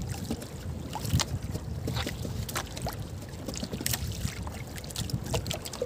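Wind rumbling on the microphone and sea water sloshing around a small outrigger fishing boat, with scattered small clicks and knocks as the handline is worked.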